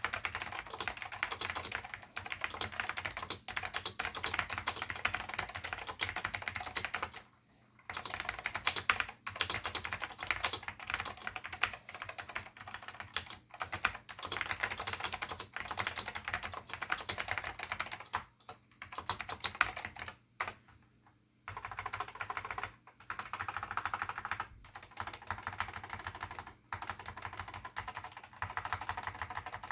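Continuous typing on a Dell AT101 keyboard in its bigfoot chassis, with Alps SKCM Salmon switches and Alps Electric ABS doubleshot keycaps: a dense run of keystrokes broken by a few brief pauses, the longest about seven seconds in and again around twenty-one seconds.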